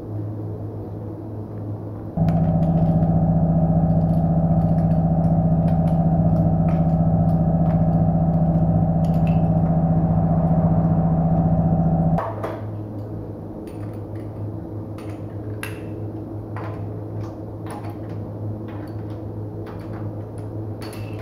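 A loud, steady machine hum starts about two seconds in and cuts off abruptly ten seconds later. It is followed by scattered metallic clicks and clanks of tyre-changing work as a car's road wheel is taken off.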